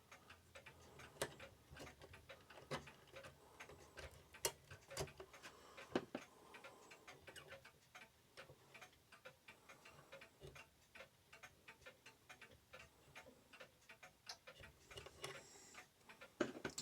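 Faint ticking of mechanical clocks, an uneven run of light clicks, with a few louder clicks now and then.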